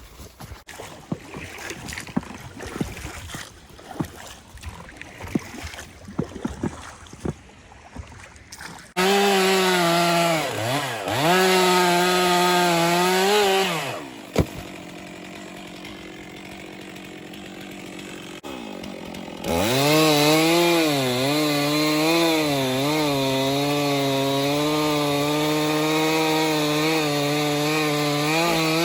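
Scattered knocks and clicks of gear being handled, then a Stihl chainsaw starts about nine seconds in and revs with dips in pitch. It cuts out about five seconds later, then runs again from about twenty seconds in, steady with small wavers in pitch.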